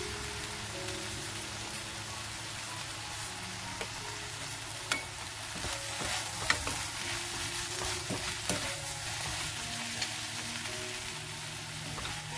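Sliced eggplant, onion and chillies sizzling in a frying pan as a wooden spatula stirs them in the last minute of stir-frying, with a few sharp knocks of the spatula against the pan.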